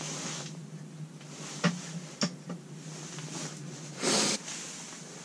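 Handling and rustling of clothing and fishing gear, with two sharp clicks around two seconds in and a brief rubbing hiss of hands together about four seconds in, over a steady low hum.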